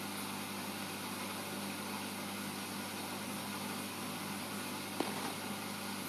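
Steady hum and hiss of reef aquarium pumps, with a single short click about five seconds in.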